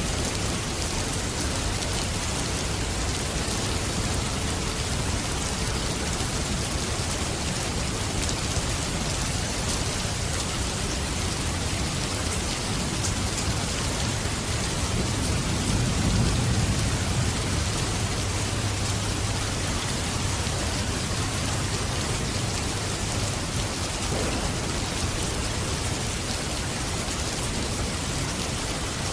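Steady rain falling in a continuous hiss, with a low rumble of thunder swelling and fading about halfway through.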